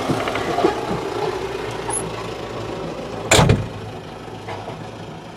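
Belarus MTZ tractor diesel engine idling, fading slowly, with one heavy thud about three seconds in.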